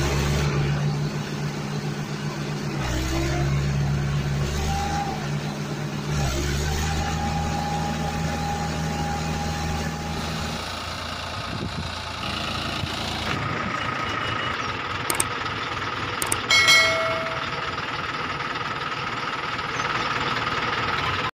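Tractor engine sound running steadily with a low, even hum that briefly dips a couple of times. After about ten seconds the hum gives way to a thinner sound with a steady high whine, a few sharp clicks and a short pitched chirp.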